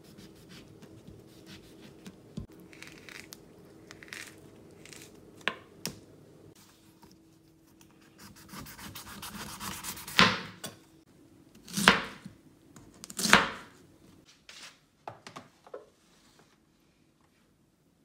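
Chef's knife cutting through an orange and a pineapple on a wooden cutting board: light clicks and scraping of the blade, then a few seconds of rasping as it saws through the pineapple, followed by three loud chops about a second and a half apart as the blade goes through onto the board.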